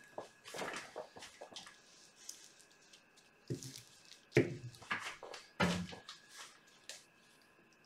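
Rustles, soft knocks and squishy handling sounds of a large stretched canvas being gripped and tilted by gloved hands over a plastic drop sheet, with a few louder bumps about halfway through.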